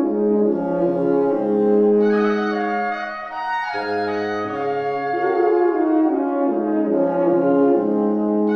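Wind ensemble of two oboes, two horns and bassoon playing classical-era chamber music, the horns prominent in held chords while the parts move from note to note.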